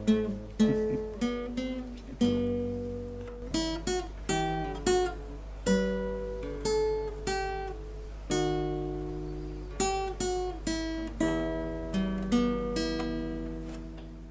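Outro music: acoustic guitar picking single notes and small chords at an unhurried pace, each one struck and left to ring away. The music fades out near the end.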